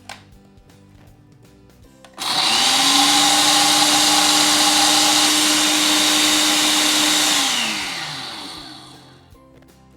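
Ninja coffee and spice grinder attachment on an Auto-iQ blender base grinding coffee beans: the motor starts about two seconds in, quickly spins up to a steady high whine, runs about five seconds, then winds down and stops.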